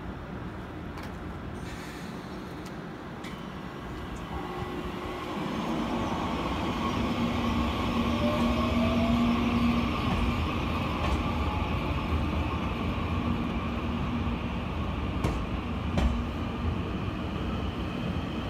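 Taiwan Railways EMU800 electric commuter train pulling out and gathering speed, growing louder about four seconds in, with a steady electric motor hum and a short rising whine. Two sharp clacks from the wheels come near the end.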